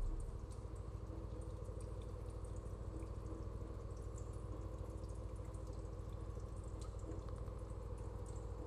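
Ambient sound-design soundtrack: a quiet steady hum of several held tones with a fine rapid pulsing and scattered faint high clicks, just after a deep bass note fades out.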